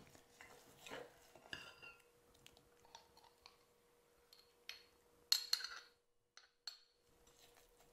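Metal spoon scraping and clinking against glass while sugar scrub is spooned from a glass measuring jug into a small glass jar: faint, scattered taps, the loudest cluster a little past five seconds in.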